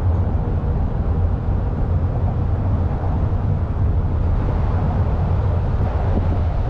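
Steady low rumble of outdoor background noise, unchanging throughout with no distinct events.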